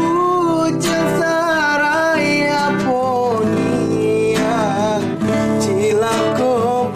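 A man singing a regional Kerinci song with vibrato, accompanying himself on a strummed acoustic guitar.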